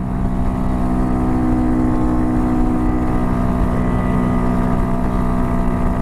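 RPS Hawk DLX dual-sport motorcycle's single-cylinder engine running steadily at sustained high revs around 62 mph, holding a constant pitch. Wind rumbles over the microphone underneath.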